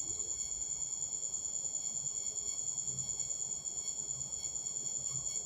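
Steady high-pitched trill with a faint quick pulse, over a quiet background hiss.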